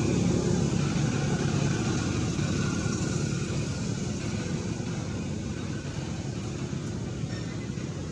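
Steady low rumble of a motor vehicle engine, slowly fading.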